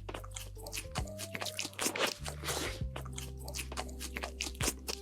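Crunchy food being bitten and chewed close to the microphone, with many quick sharp crunches.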